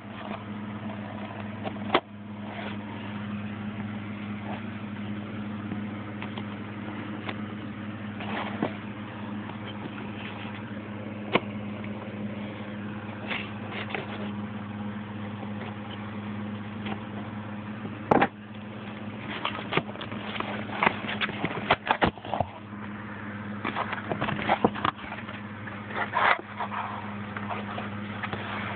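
Cardboard shipping box and packaging being opened and handled by hand: scattered sharp clicks, then a busy run of crinkling and rustling in the second half. A steady low hum runs underneath.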